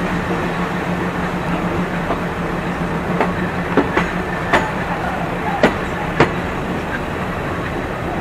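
Diesel-hauled passenger train rolling slowly out of the station, heard from an open carriage window: a steady low hum, with the wheels giving a few sharp, irregular clacks over rail joints and points in the middle of the stretch.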